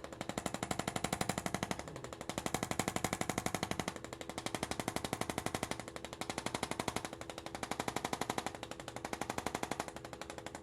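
Percussive massage gun running, its head hammering rapidly and evenly against the patient's muscles, the tapping growing louder and softer about every two seconds as it is pressed and moved.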